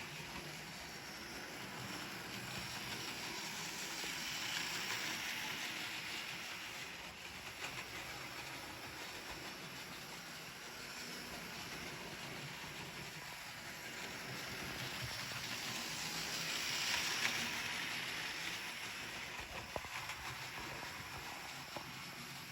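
Hornby 00 gauge Thomas the Tank Engine model locomotive running on its track with two coaches: a steady electric motor whirr and wheel noise on the rails. It grows louder twice, about five seconds in and again near seventeen seconds, as the train passes close by on its loop.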